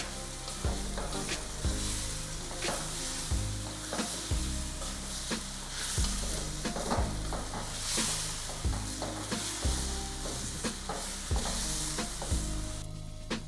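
Beef chunks sizzling as they sear in an aluminum pot over high heat, the released juices having cooked off so the meat is browning again. A utensil knocks and scrapes against the pot about once a second as the meat is stirred.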